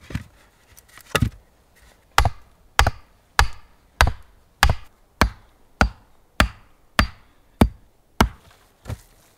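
A hatchet striking wood in a steady run of about a dozen sharp blows, a little under two a second, after a couple of lighter knocks near the start.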